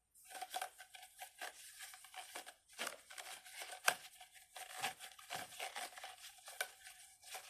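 Crinkly plastic packaging being handled and shuffled by hand: a stream of irregular rustles and crackles, with one sharper snap just before four seconds in.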